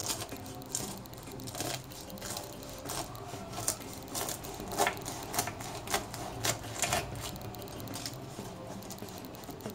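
A knife slicing through a freshly baked spiral börek of rolled yufka pastry in a round metal tray. The crisp, flaky crust crackles and crunches in sharp, irregular crisps, a few each second. The sound is the sign of a fully crisped, well-baked crust.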